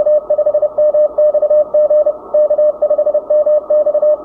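Fast Morse code (CW) from the Icom IC-7300 transceiver's speaker: a single steady tone keyed in rapid dots and dashes over the radio's band hiss.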